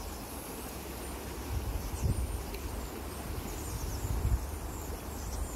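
Small river running steadily over a shallow riffle, with wind buffeting the microphone and a few faint, high bird chirps.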